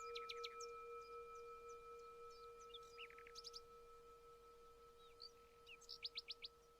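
A meditation bell rings out, slowly fading on a steady pitch with overtones, while small birds chirp in quick rapid runs several times over it.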